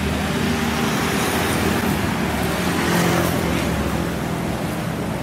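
Toyota Avanza minivan driving slowly past close by with its engine running, over steady road traffic noise; the sound swells to its loudest about three seconds in as it passes.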